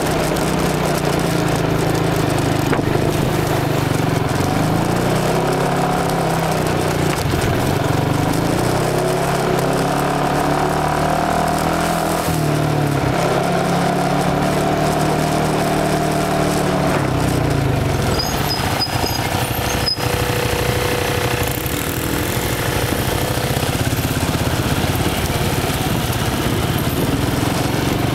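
ATV engine running along a rough dirt trail, its pitch rising and falling with the throttle. Later on it settles into a steadier, lower note.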